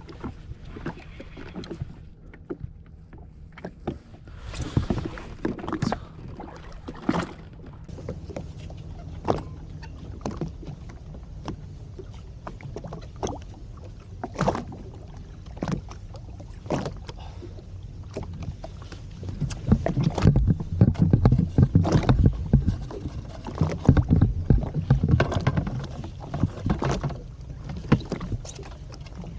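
Sea water slapping and splashing against the hull of a Sea-Doo Fish Pro personal watercraft, with irregular knocks. The knocks are heaviest for several seconds in the last third. A faint low hum fades out about a third of the way in.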